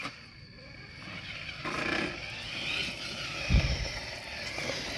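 Traxxas TRX-4 High Trail RC crawler driving, its electric motor and drivetrain whining and rising in pitch, with one low thump about three and a half seconds in.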